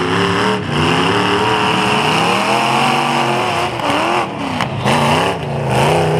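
Demolition derby cars' engines revving hard as they drive across a mud arena. The engine pitch climbs and falls over and over, slowly at first, then in quicker swells.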